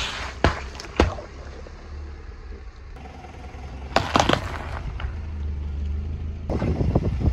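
Car tyre rolling over juice cartons, which burst with two sharp pops, over the low rumble of the slowly moving car. About four seconds in, eggs in a paper egg tray crack under the tyre in a quick cluster of crunches. Near the end a rough rushing noise builds.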